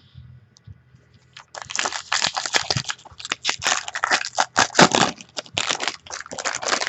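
Plastic packaging being crinkled and crumpled by hand, a dense, irregular crackling that starts about a second and a half in.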